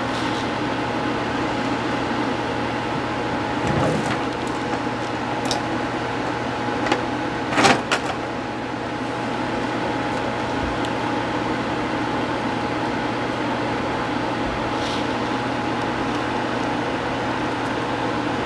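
Steady background hum with a constant low pitch, broken by a few short clicks, the loudest a quick pair about eight seconds in.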